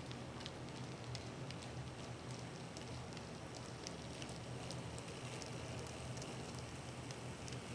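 Model railway train running over the pointwork: a steady low hum under a crackly rush, with irregular light clicks as the wheels cross rail joints and turnouts.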